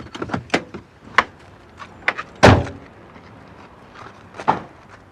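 A car door slammed shut with a heavy thump about two and a half seconds in, among a run of smaller clicks and knocks, and a second, softer thump near the end.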